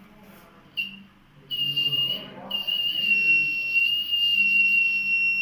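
Electronic buzzer of an IR-sensor security alarm sounding a steady high-pitched tone as the sensor detects an object passing: a brief beep about a second in, a second beep, then a continuous tone.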